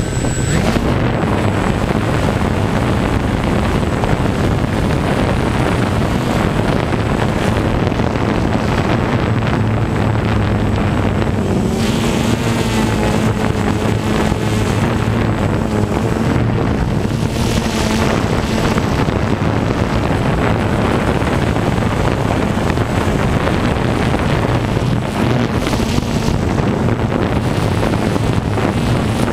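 Walkera QR X350 Pro quadcopter's brushless motors and propellers running steadily in flight, heard close up from the drone's own frame, their hum shifting slightly in pitch as the motors change speed, with wind rushing over the microphone.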